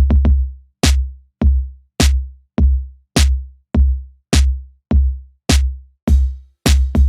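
Background music: a bare drum-machine beat, each hit a deep bass-drum thump layered with a sharp snare-like crack, evenly spaced at a little under two hits a second.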